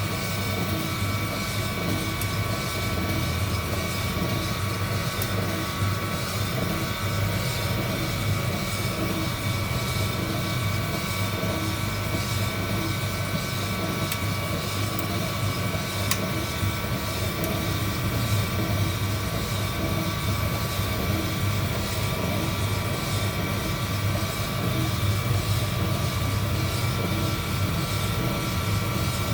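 Heat gun blower running steadily during a coffee roast, a constant low hum with a high motor whine.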